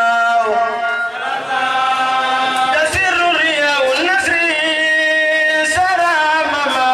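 A voice chanting a devotional song, holding long notes that slide from one pitch to the next.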